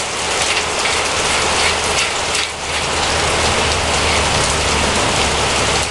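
Threaded Euro bottom bracket bearing cup being screwed into a bicycle frame's bottom bracket shell, with light metal-on-metal mechanism sounds, over a steady hiss.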